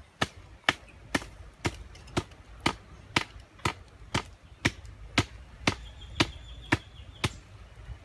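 A hand blade chopping into a thin green wooden sapling stick, a steady run of about fifteen sharp cuts at about two a second.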